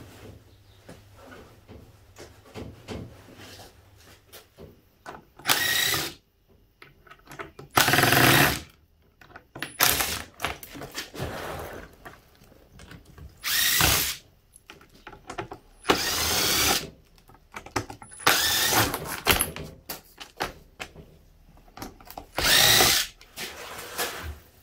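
Cordless drill-driver running in about eight short bursts, each under a second, backing screws out of the fittings on a roof tent's wooden base.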